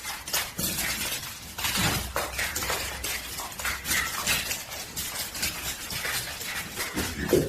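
Clattering and clinking of hard objects, many quick knocks and scrapes one after another.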